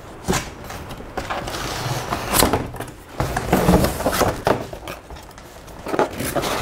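Cardboard packaging being handled: box flaps lifted and folded back and an inner cardboard box slid out, giving irregular scraping, rustling and knocks.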